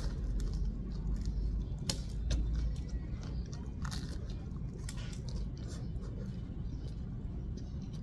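A person chewing a mouthful of crusty bánh mì (Vietnamese baguette sandwich), with scattered crisp crunches of the bread crust.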